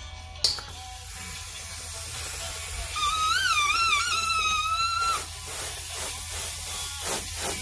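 Air hissing from a balloon inflator's nozzle as a latex balloon is blown up inside a clear bubble balloon, starting after a click about half a second in. A wavering squeal rises and falls over it for about two seconds mid-way.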